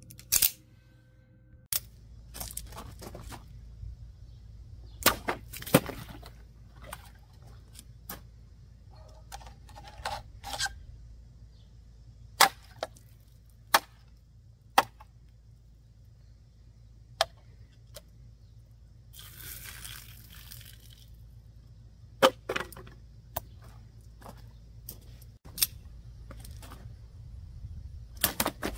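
Out-the-front automatic knives slashing and stabbing medium plastic bottles, heard as sharp cracks and snaps at irregular intervals. About two-thirds of the way through there is a second or two of rustling.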